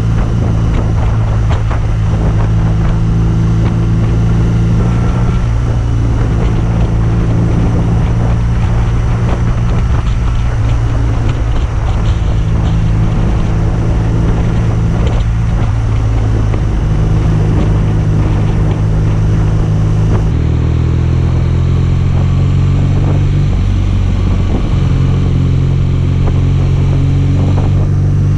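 BMW R nineT's boxer twin engine and exhaust running while the motorcycle is ridden, a deep, thick exhaust note whose pitch shifts in steps several times, most clearly about twenty seconds in.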